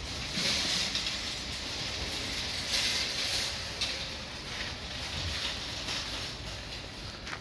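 Hiss of car tyres on wet pavement, swelling about a second in and again around three seconds in as vehicles pass.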